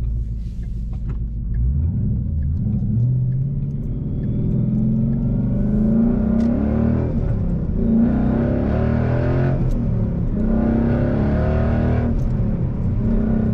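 Boss 302's 5.0 V8 exhaust through Roush axleback mufflers, heard from inside the car as it accelerates through the gears. The engine note rises in pitch and drops back at each shift, twice, with a deep, crisp tone from the rear.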